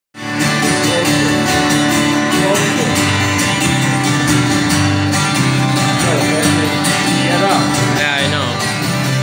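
Two acoustic guitars strumming chords together, an instrumental passage with no singing.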